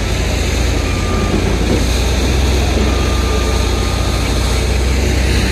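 Heavy diesel machinery engine running steadily with a deep, constant hum.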